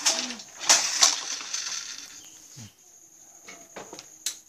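Wooden handloom clacking: a few sharp knocks in the first second or so, then quieter, scattered knocks near the end.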